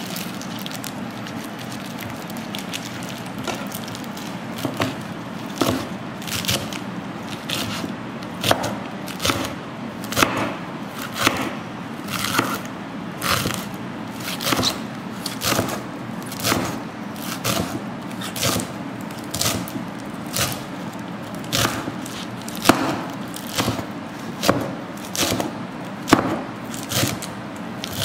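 Large kitchen knife chopping a pile of gotu kola (pennywort) leaves on a wooden cutting board, each stroke a sharp knock of the blade through the leaves onto the wood. The chops begin a few seconds in and come about once a second.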